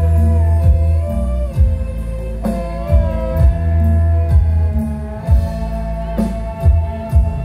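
Loud music played through large sound-system speaker stacks: heavy, booming bass with a steady kick-drum beat under a lead melody that slides in pitch.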